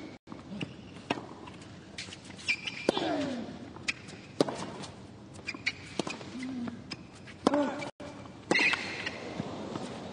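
Tennis rally: sharp, irregular racket strikes and ball bounces, a few of the strikes followed by a short falling grunt from a player, over a faint crowd murmur.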